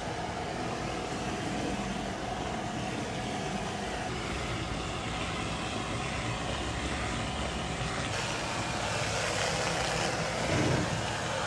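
Steady machine noise with a held mid-pitched tone for the first few seconds, growing hissier near the end.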